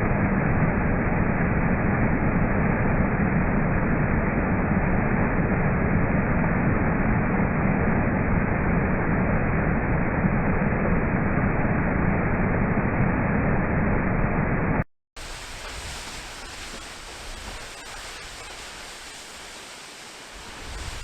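Steady, loud rush of falling water from a waterfall. About fifteen seconds in it cuts off suddenly and, after a moment's silence, a quieter, thinner steady rush of water takes over.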